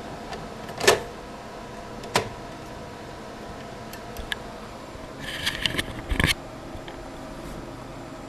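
Sharp plastic clicks and knocks, then a short clatter about five to six seconds in, over a steady faint hum: a bare 2.5-inch laptop hard drive being handled and seated into a hard-drive docking station.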